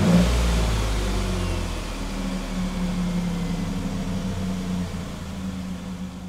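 A motor vehicle engine running steadily at a low idle, growing quieter near the end.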